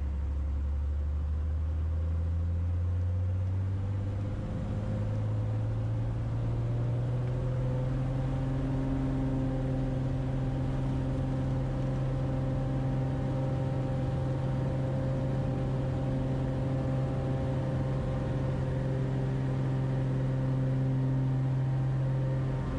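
Piston engine and propeller of a small single-engine bush plane heard from inside the cockpit. The engine note rises in pitch over the first five seconds or so as power comes up, then runs steadily while the plane rolls along a dirt strip.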